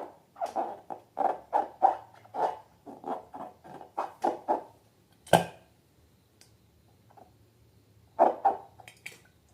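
Slime being squeezed by hand, a quick rhythmic run of wet squishes, about three a second, then one sharp loud snap a little past halfway. After a pause come two more squishes and a small click near the end.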